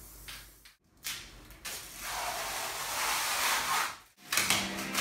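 Aerosol spray paint can hissing: a short spurt, then a longer steady spray lasting about two seconds. The sound drops out abruptly twice, and music starts near the end.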